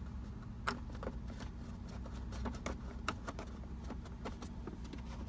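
Scattered light clicks and knocks of plastic center-console trim parts being handled and fitted into place, over a steady low hum.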